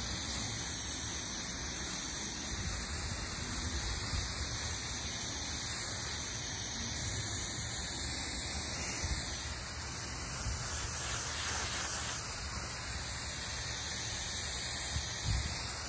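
Garden hose spray jetting steadily onto grass and bare soil, a continuous hiss of water.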